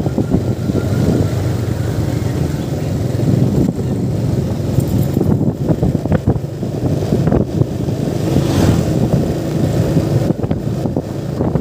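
Yamaha motorcycle engine running steadily while riding, with wind rushing over the microphone.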